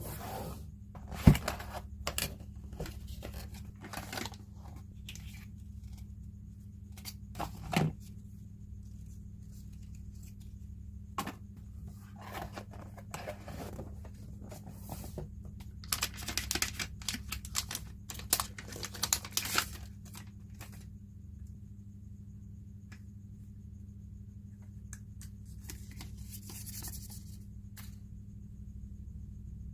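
Packaging being opened: cardboard and plastic tearing, rustling and knocking in scattered bursts, with a sharp knock about a second in. Handling stops after about twenty seconds, and a short hiss comes near the end. A steady low hum runs underneath.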